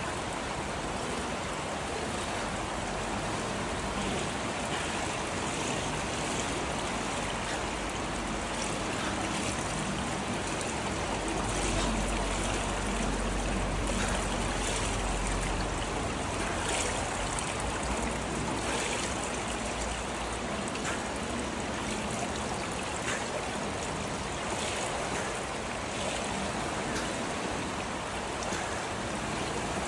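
Steady water splashing and churning from a swimmer treading water with an eggbeater kick while holding a 7.5 kg weight, with small splashes scattered through it. A low rumble joins in for a few seconds before the middle.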